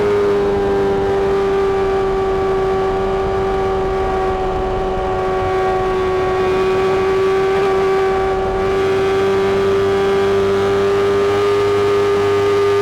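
Honda CBR600RR inline-four engine held at high rpm through a Mivv aftermarket exhaust: a steady, high-pitched note that sags slightly and then climbs again near the end.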